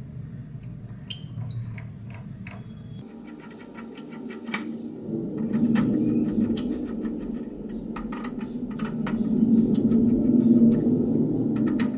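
Screws being fastened into the outlet fan covers of an ASIC mining machine's metal case: many quick light clicks and metal scrapes, with a low whirr that swells twice, about halfway through and again near the end.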